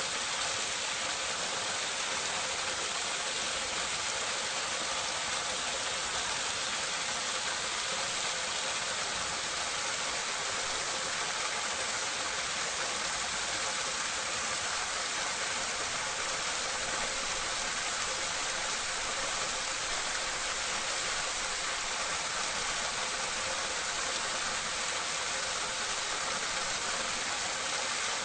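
Water pouring and splashing into a drain gully from a drainpipe, recorded close up: a steady, even rush with no breaks.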